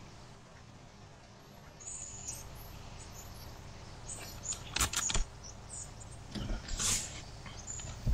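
A trigger spray bottle spritzing soapy water onto air-suspension line fittings to leak-check them, two short spritzes about two seconds apart, amid faint small high crackles and ticks.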